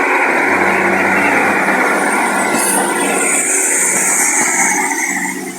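Two-car diesel multiple unit pulling away from the platform close by, its diesel engines running under power over wheel-on-rail noise. A high hiss runs through the middle, and the sound fades near the end.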